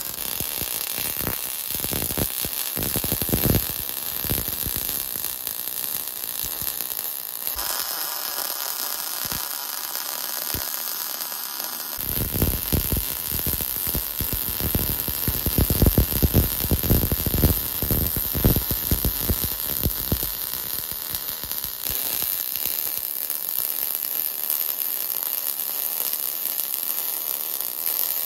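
MIG welding arc from a Migatronic RallyMig 161 welder, a steady dense crackle as the wire burns into the weld pool. Its tone shifts abruptly a few times, as between separate welds.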